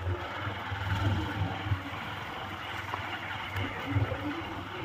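Motorcycle riding along a dirt road: the engine runs steadily under wind rush and road noise, with uneven low rumbling throughout.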